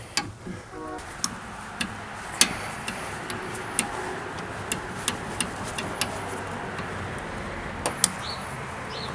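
Sharp single metallic clicks, every half second to a second, as a wrench works a seized brake-line flare nut loose at the proportioning valve, over a steady hiss that starts about a second in.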